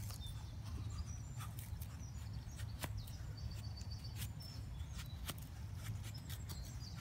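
Convex-ground knife blade shaving thin curls down a split wooden stick to make a feather stick: irregular short scraping strokes. Birds chirp in the background over a steady low rumble.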